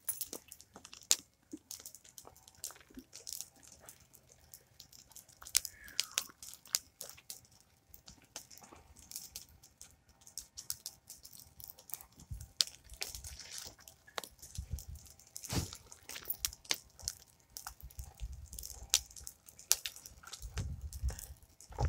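Campfire of dry logs crackling, with irregular sharp pops and snaps. Low rumbling swells come in during the second half.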